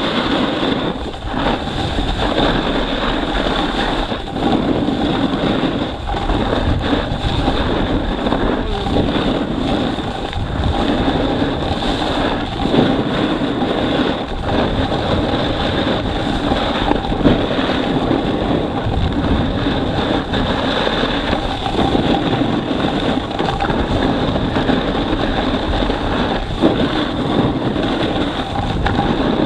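Loud, steady rush of wind buffeting the microphone of a camera carried down a snow slope on a snowboard run, with faint irregular scrapes and knocks throughout.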